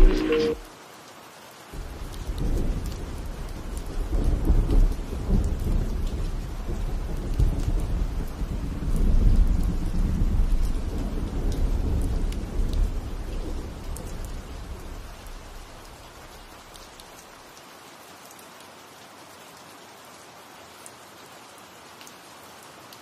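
Low rolling rumble of thunder. It starts about two seconds in, swells, and dies away by about sixteen seconds, leaving a steady faint hiss.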